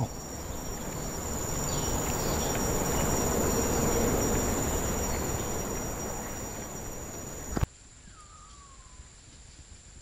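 Rainforest insect chorus: a steady high-pitched whine with a louder rasping drone that swells and fades away. It cuts off abruptly near the end to quieter forest ambience, where a short falling whistle sounds once.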